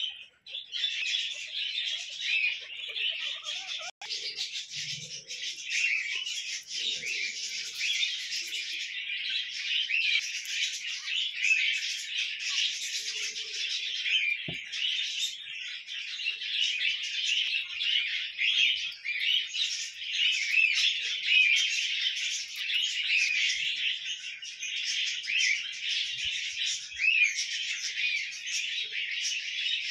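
Dense, continuous chirping and chattering of a flock of small birds, many overlapping high calls with no pause.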